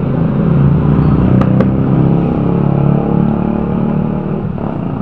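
Small motorcycle engine running steadily with a low rumble. Two sharp clicks come close together about a second and a half in.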